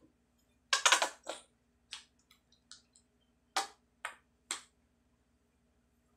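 Plastic lotion bottle squeezed upside down, its nozzle spluttering in short sharp squirts as lotion is pushed out onto slime: a loud cluster about a second in, then several single squirts, the last about four and a half seconds in.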